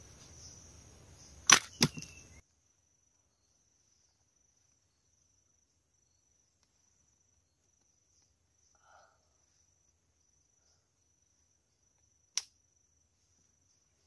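Sharp snaps of a bamboo and rubber-band spring trap being set: two close together, about a third of a second apart, near the start, and one more near the end. A steady high insect drone runs underneath.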